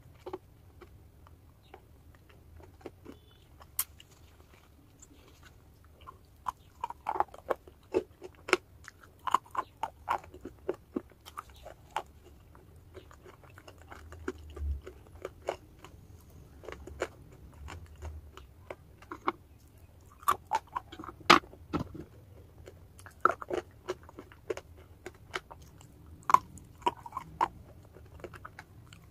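Close-miked biting and chewing of pieces of chalk: irregular sharp crunches, sparse for the first few seconds and then coming in quick clusters.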